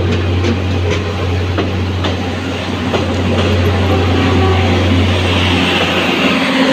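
Passenger train coaches passing close by, their wheels clacking over rail joints about twice a second over a steady low hum and rolling noise.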